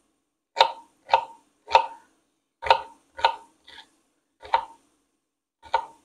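Kitchen knife dicing celery stalks on a wooden cutting board: about eight separate knocks of the blade on the board, unevenly spaced, with pauses of about a second between some cuts.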